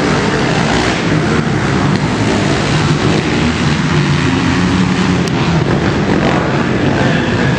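Engines of several racing quads (ATVs) running together on the track, loud and continuous.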